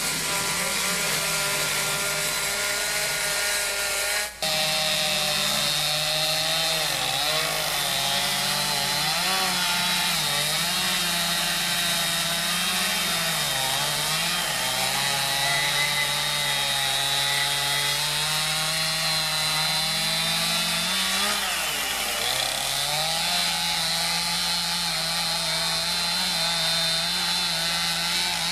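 Two-stroke chainsaws at high revs carving into wooden logs, the engine pitch sagging and recovering again and again as the chain takes load in the wood. The sound breaks off for an instant about four seconds in, then a Stihl saw carries on cutting.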